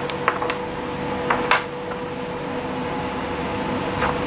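Scattered light clicks and knocks of 3D-printed plastic parts being handled on a wooden workbench, the loudest about a second and a half in, over a steady faint hum.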